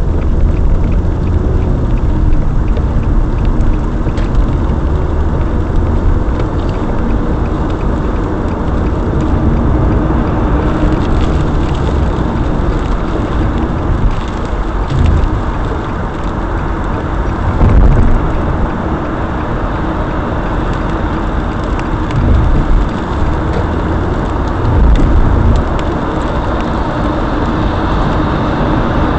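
Road noise of a moving car heard from inside the cabin: a steady low rumble of tyres and engine at highway speed, swelling louder three times in the second half.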